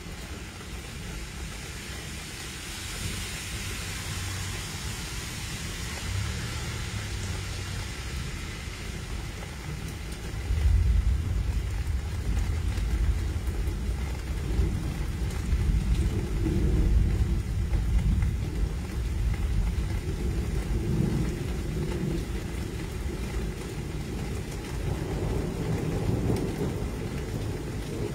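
Steady rain during a thunderstorm, with a long low rumble of thunder that starts about ten seconds in and rolls on for around ten seconds.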